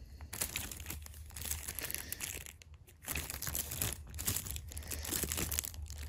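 Clear plastic wrapping on a motion sensor crinkling as the sensor is handled and turned over, with a short lull about halfway through.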